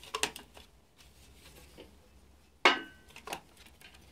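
A single sharp metallic clank about two-thirds of the way in that rings briefly, from metal engine parts being handled, with a few faint taps before it.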